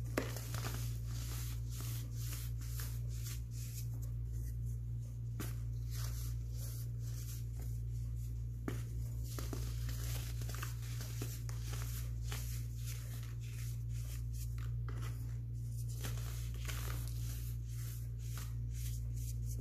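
Chunks of dyed baking soda crumbling and crunching between the fingers: a dense, continuous run of small crackles and crunches as they break apart into powder. A steady low hum runs underneath.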